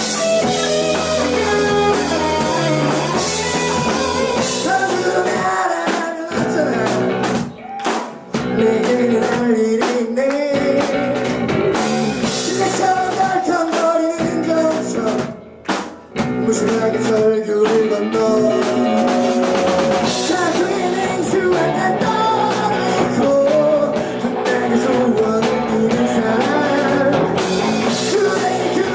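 Rock band playing live, with electric guitar, drum kit and singing. The band stops short twice for a moment, about eight and sixteen seconds in.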